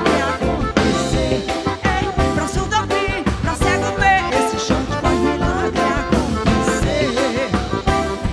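Live band music with accordion, electric bass and conga drums over a steady beat, and a woman singing over the band.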